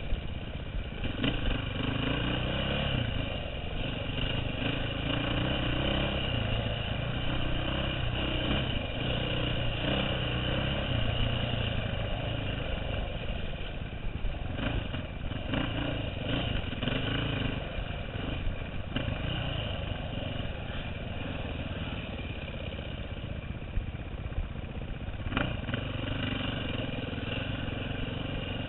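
2009 KTM 530 EXC's single-cylinder four-stroke engine, heard from the rider's helmet, revving up and down continually as the throttle is worked through a tight woods trail. A few sharp knocks cut in, about a second in, around the middle and near the end.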